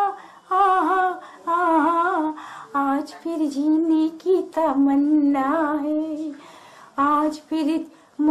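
A woman singing a Hindi film melody unaccompanied, in short phrases with held and gliding notes broken by brief pauses, with a longer pause near the end.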